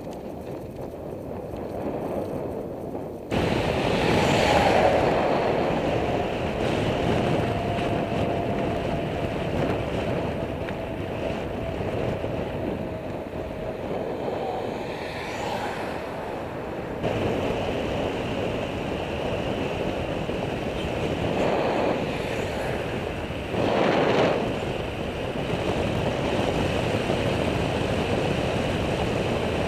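Wind rushing over the microphone of a camera on a moving bicycle, mixed with road noise. It is a steady rushing noise that jumps louder about three seconds in and swells briefly a few times.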